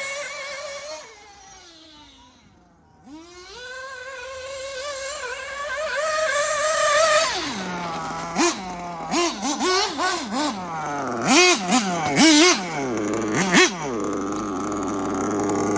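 Kyosho MP10 nitro buggy's FTX glow engine running at high revs, fading and then rising in pitch as the buggy speeds up again. About seven seconds in it drops to a low idle and is revved in a string of quick throttle blips, then settles to a steady idle.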